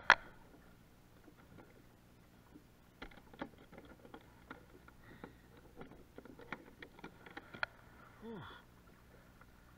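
A sharp knock at the start, then a run of small clicks and taps as hands work fishing line and gear on a plastic kayak deck. A short grunt comes near the end.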